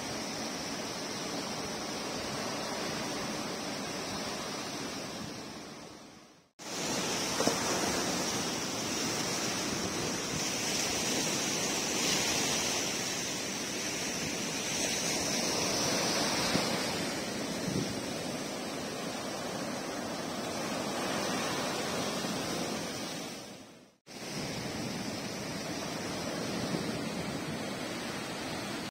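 Ocean surf washing up onto a sand beach: a steady rush of breaking waves. It fades to silence twice, briefly, about six seconds in and again about twenty-four seconds in, then comes straight back.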